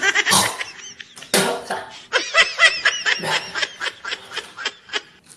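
Laughter in a string of quick bursts, high-pitched in the middle stretch.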